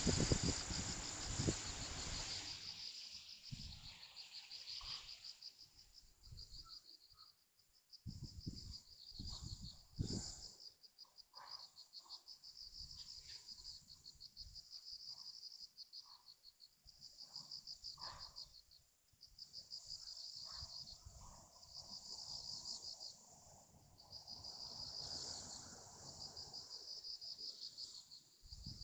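Insects chirping in a fast pulsing trill, in long runs broken by short pauses. A low rumble fills the first couple of seconds, and a few soft low thumps come through the middle.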